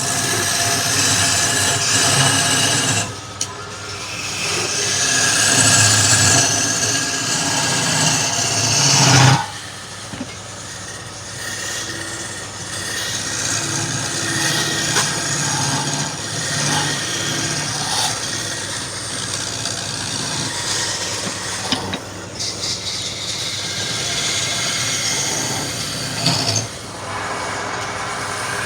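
Woodturning lathe running with a steady low motor hum while a turning tool cuts the spinning wood, a loud hiss of cutting that swells and breaks off briefly several times as the tool is pressed in and lifted.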